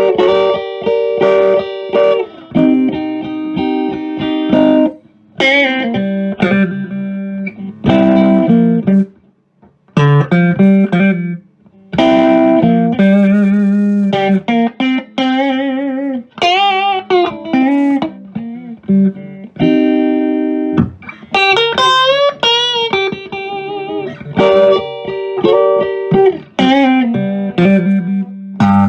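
Fender Big Apple Stratocaster, its two humbuckers selected by the switch's middle position, played through a Tweed Pro clone tube amp with 4x8 speakers: chords and single-note licks with string bends and vibrato, with a couple of short pauses near the middle.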